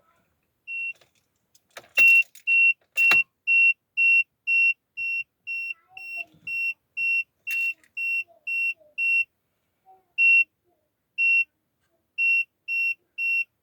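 Peugeot 5008 warning beeper sounding a high, steady beep about twice a second, as the car fails to start. A few sharp clicks fall among the early beeps. Around ten seconds in, the beeps slow to about one a second, then resume their pace.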